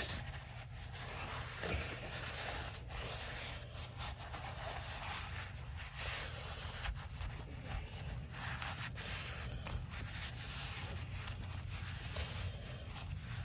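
Paper towel rubbing and scraping against a foamy steel wheel rim under a gloved hand, in quick uneven wiping strokes, over a steady low hum.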